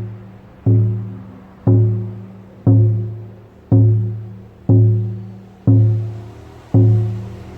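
Lakota healing drum, a hand-held rawhide frame drum, struck in a slow steady beat of about one stroke a second. Each stroke rings with a low tone that fades before the next.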